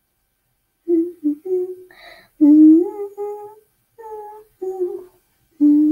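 A young girl humming a wordless melody unaccompanied, a string of held notes with short breaks between them, starting about a second in.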